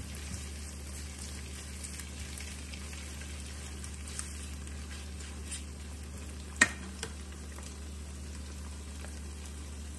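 Oil sizzling steadily under scrambled egg and diced pork in a frying pan over high heat, with a wooden spatula stirring; one sharp click about six and a half seconds in.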